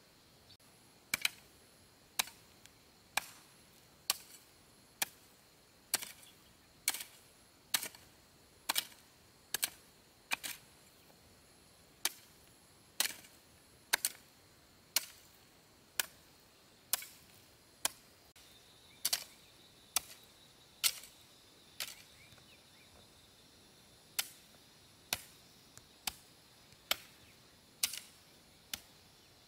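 A hand tool chopping in steady strokes, about one sharp strike a second, with two short pauses.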